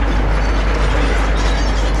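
Excavator-mounted hydraulic breaker hammering at a building, a loud, steady, rapid rattling clatter.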